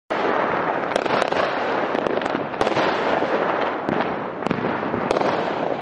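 Fireworks crackling densely, a continuous crackle with many sharp cracks and pops through it.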